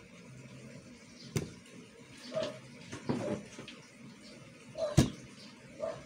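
QiYi stickerless speed cube being turned fast by hand: plastic layers clicking and clacking in short irregular bursts, a sharp click just over a second in and the loudest clack about five seconds in.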